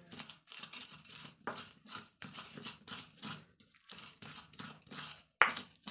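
Sliced shallots being ground in a mortar with a pestle (Indonesian cobek and ulekan): repeated crushing, scraping strokes, two or three a second, with one sharp knock of the pestle against the mortar near the end.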